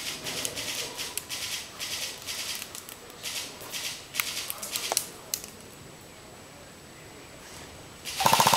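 Airsoft gunfire: a string of short, sharp, hissy pops and clicks over the first five seconds, then a brief, loud, rapid burst near the end.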